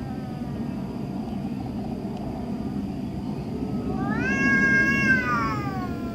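Domestic cat yowling: a long drawn-out call that rises, holds and slides down again, starting about four seconds in. At the very start the falling tail of an earlier yowl fades out. A steady low background hum runs underneath.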